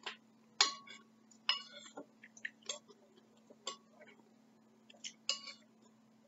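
Metal spoon clinking against a ceramic soup bowl while stirring and scooping chicken noodle soup: several separate clinks roughly a second apart, some with a short ring.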